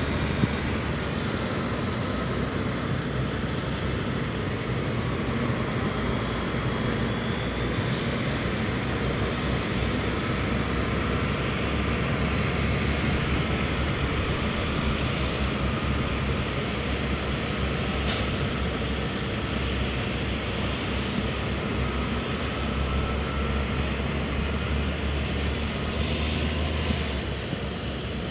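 Engine of a six-wheeled airport crash-rescue fire truck, a steady rumble as it drives along the runway past the listener.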